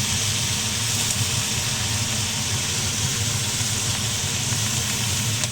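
Stir-fried kana vegetables sizzling steadily in a hot pan, a constant high hiss over a steady low hum.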